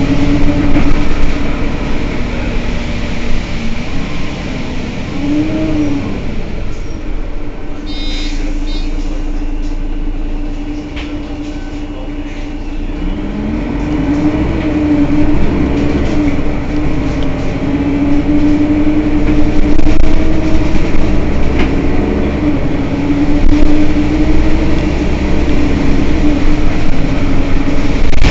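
Mercedes-Benz Citaro city bus engine idling while the bus stands still: a steady low rumble with a constant whine above it. It eases off a little around the middle and is louder again in the second half.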